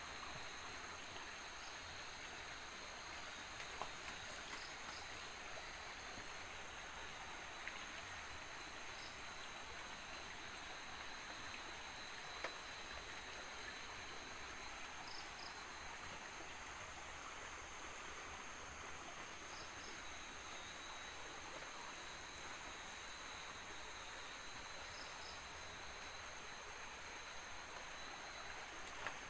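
Night insects calling: several steady high-pitched trills run together, and a short double chirp comes back every four to six seconds, over a faint even hiss. A few soft clicks stand out.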